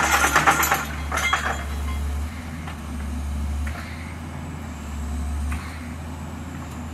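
Excavator-mounted vibratory pile hammer rattling loudly as it drives a steel sheet pile, stopping about a second and a half in. After that the excavator's engine runs on steadily, its level stepping up and down as the boom lifts the hammer clear.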